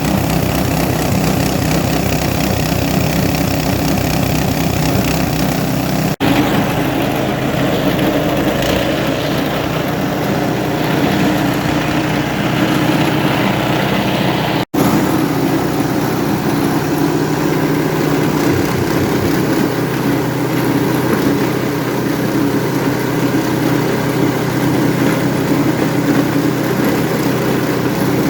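Foam shredding machine running steadily with a continuous loud mechanical drone, cutting out for an instant twice.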